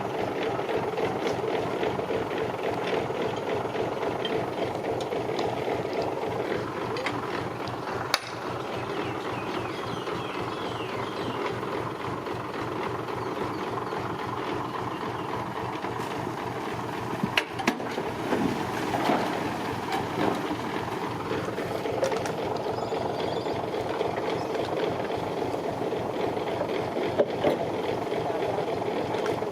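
Heavy construction machinery's diesel engine running steadily with a metallic rattle, and a few sharp clacks along the way.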